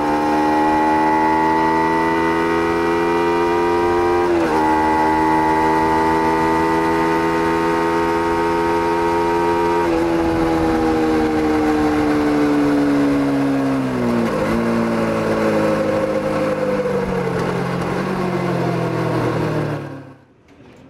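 Small Kawasaki Z-series motorcycle's engine running under way, its pitch climbing slowly with brief dips at gear changes about four, ten and fourteen seconds in. From about ten seconds in the revs fall steadily as the throttle is closed and the bike slows, and the sound cuts off abruptly near the end.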